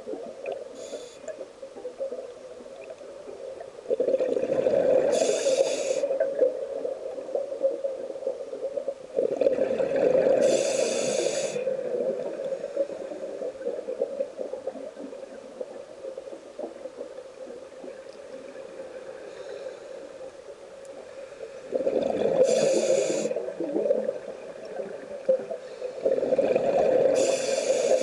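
A scuba diver's breathing heard underwater. It comes as about four breaths, each with a short hiss from the regulator and the bubbling rumble of exhaled air. There is a long gap without breaths in the middle.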